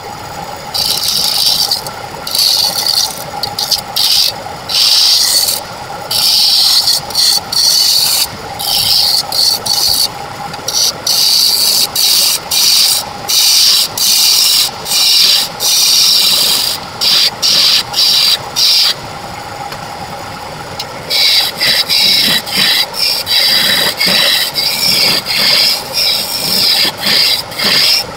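Wood lathe running with a steady motor hum while a turning tool cuts a spinning segmented wood blank in repeated passes, each pass a burst of scraping. About two-thirds of the way through, the cutting stops for a couple of seconds and only the lathe runs, then the passes resume.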